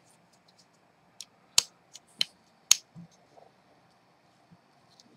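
Steel knife blades prying and scraping at the metal heat spreader of a Pentium 4 processor: a handful of sharp metal clicks between about one and three seconds in, the loudest about a second and a half in.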